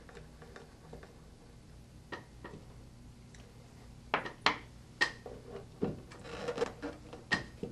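Scattered light clicks and knocks from the parts of a multipurpose IV training arm being handled and fitted together on a table. They start about two seconds in, and a few sharper knocks come in the second half.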